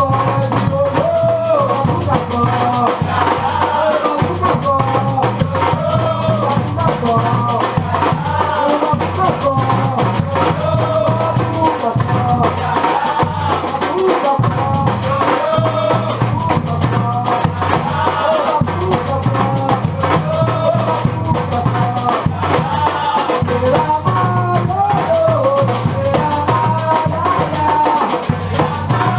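Batucada percussion group drumming a steady, driving rhythm, low drums repeating a pattern, with a melody line above it.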